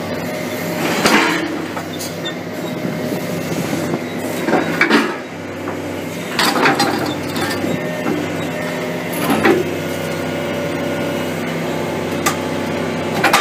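Excavator engine running steadily while a Zato Cayman 20R hydraulic shear cuts scrap steel. About five loud metallic crunches come as the jaws bite through the metal.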